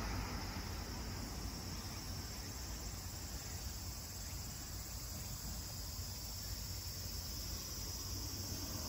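Steady chorus of insects in roadside summer vegetation, an even, unbroken hiss over a low background rumble.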